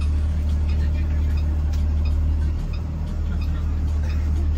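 IC CE school bus's diesel engine idling with a steady low hum, heard from inside the cabin.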